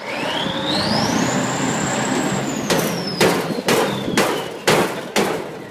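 Heavy diesel tractors pulling hard against each other under full load. A high turbo whistle rises steeply in the first second, holds, then slowly sinks over the engine rumble. From about halfway there is a run of six loud sharp claps or bangs, about two a second.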